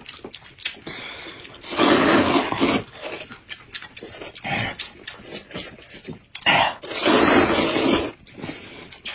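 Loud noodle slurping from two people eating hot and sour noodles: two long slurps, about two seconds in and about seven seconds in, with short wet chewing and lip-smacking clicks between.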